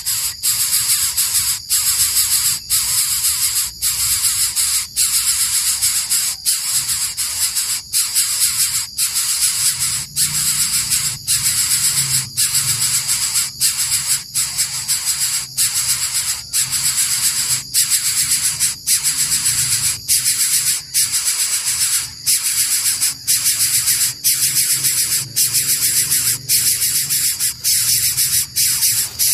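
Coucal giving a continuous, loud hissing rasp, broken by short breaks about once a second, while being fed.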